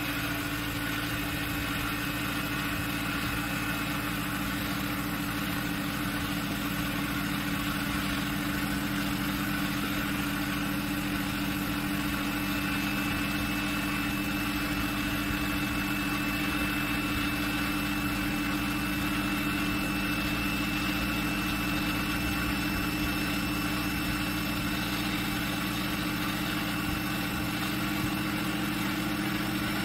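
Small DC motor driving a pair of flywheels and a larger DC motor run as a generator at about 3,500 rpm: a steady mechanical hum with a fine high whine, edging slightly up in pitch as the speed keeps climbing.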